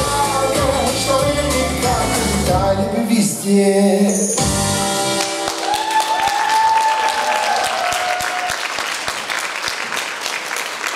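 Dance music with singing plays and stops abruptly about four seconds in, then the audience applauds.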